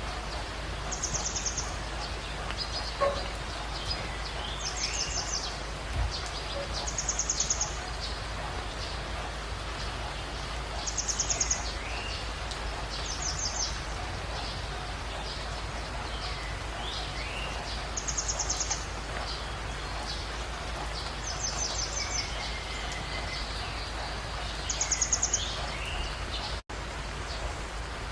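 Dawn chorus of birds over a steady background hiss: one bird repeats a short, high, rapid trill every few seconds, while others add scattered chirps and short gliding whistles. The sound cuts out for an instant near the end.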